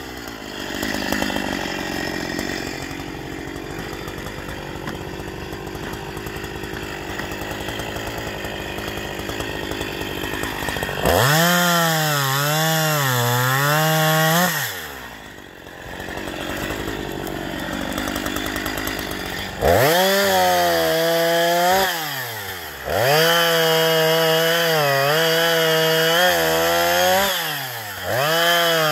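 Husqvarna 346 XPG two-stroke chainsaw idling steadily for about ten seconds, then revved up to high speed and let back down to idle several times. Its pitch wavers while it is held high.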